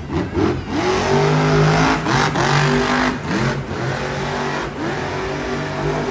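Grave Digger monster truck's supercharged V8 engine revving hard, its pitch climbing and dropping again several times as the throttle is worked.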